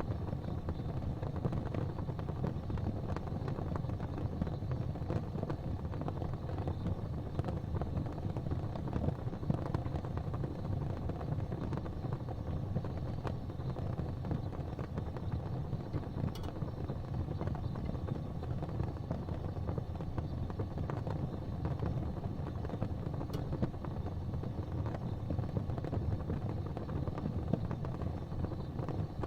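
Gas fireplace flames burning with a steady low rumble, with a few faint ticks.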